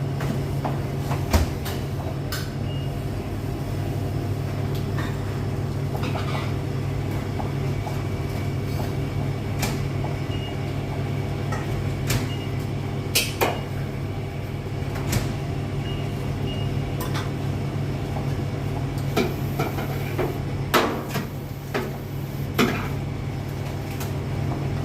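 Steady low hum of commercial kitchen machinery, with scattered sharp knocks and clatter throughout.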